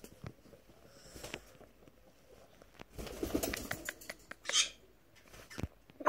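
Blue-and-gold macaw making soft, low cooing and grumbling sounds a few seconds in, then a short, high hiss-like sound; faint clicks around it.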